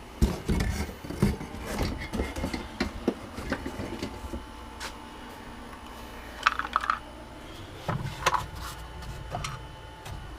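Irregular knocks, clinks and scrapes of old electrical parts with porcelain fittings being handled and set into a box, with a few louder knocks around six and eight seconds in.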